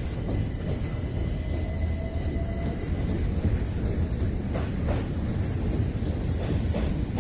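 Electric passenger train crossing a steel truss railway bridge: a steady low rumble, with a thin wheel squeal for the first couple of seconds and a few sharp clacks of wheels over rail joints later on.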